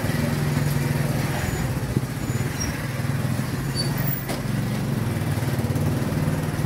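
An engine running steadily nearby, a low even hum with no change in pitch.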